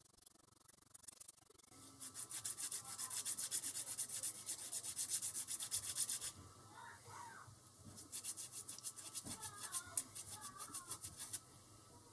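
Emery board rubbed quickly back and forth against a small brass lock part, a dry scraping at about five strokes a second. It comes in two runs with a short pause between them, the second ending near the end.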